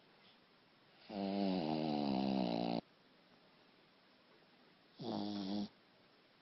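Shih Tzu snoring: two pitched, wavering snores, a long one about a second in and a shorter one about five seconds in, with quiet between breaths.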